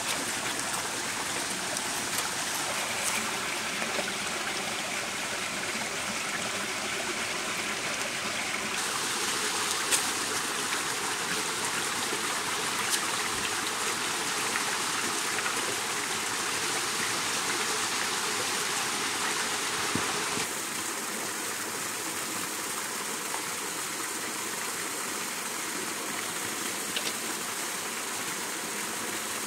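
Small woodland stream and waterfall running steadily, a continuous rushing of water. Its tone shifts twice, and a few faint clicks and knocks sit on top.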